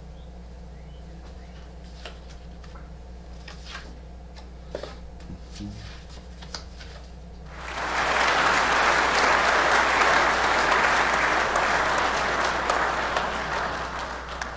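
Crowd applause sound effect that comes in about halfway through, loud and dense, then fades near the end. Before it, only a steady low hum with a few light clicks and rustles.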